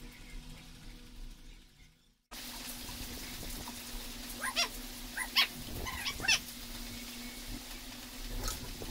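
A cat meowing: four or five short meows in quick succession around the middle, over a faint steady hum.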